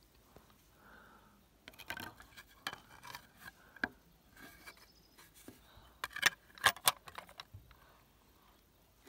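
Metal parts of a Bosch GWS 18-125 V-LI angle grinder being handled while its disc is changed: a run of sharp clicks, clinks and jangles, loudest about six to seven seconds in.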